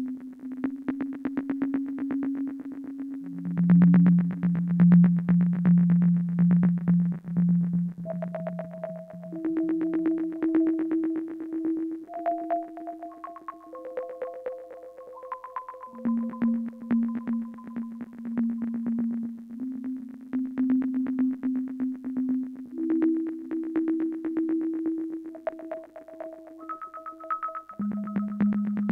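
Modular synth patch: a Mutable Instruments Plaits voice on its percussive models, pitched by the 0-Coast's stepped random voltage quantised through a 2hp Tune. It plays a fast stream of short clicky hits over ringing tones that jump to a new pitch every few seconds.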